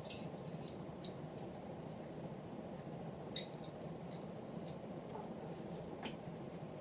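Emerson Alta ceiling fan running on high: a steady, even whoosh of motor and moving air. A few small clicks sound over it, with one sharper click about halfway through.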